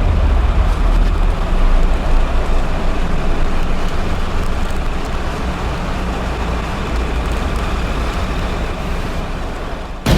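Steady low rumble and hiss of a moving vehicle's road and wind noise, cut off abruptly near the end.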